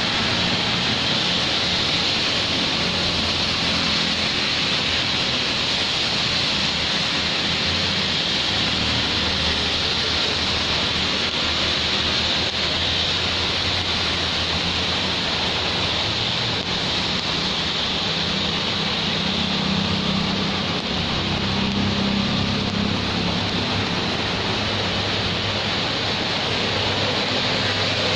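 Steady hiss of rain falling, over the low hum of light traffic moving on the wet road.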